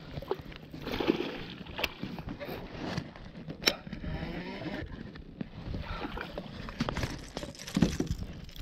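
Water lapping and sloshing against a plastic fishing kayak's hull, with scattered sharp knocks and clicks of gear being handled on board.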